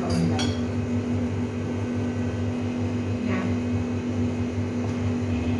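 Steady low mechanical hum from a running appliance, with a couple of faint brief sounds just after the start and about three seconds in.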